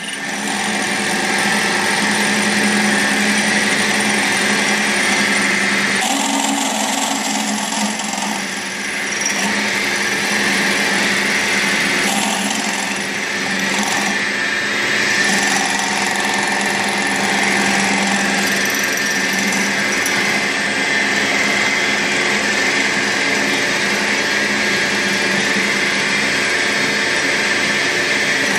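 Milling machine spindle turning a 1-1/8 inch hole saw at about 1,250 RPM, cutting into an aluminum tube to cope its end. It runs steadily, with small shifts in the cutting sound a few times.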